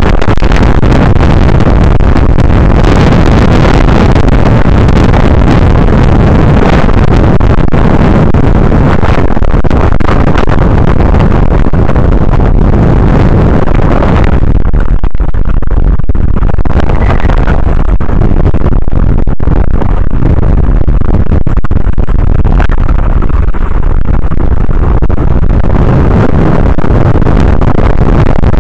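Strong wind buffeting the microphone over rough water: a loud, constant roar heaviest in the low end, its upper hiss thinning about halfway through.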